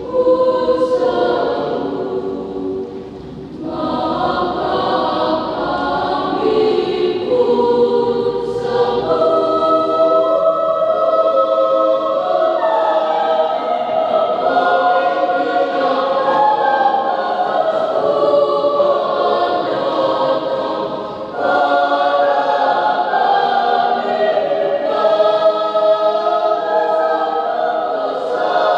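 School choir singing a sacred choral piece in several parts, holding sustained chords, with short breaks between phrases about 3 and 21 seconds in.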